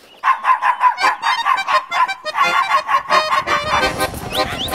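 Cartoon sound effect: a fast string of short nasal honks, about five a second. Near the end it gives way to music with swooping, whistle-like glides.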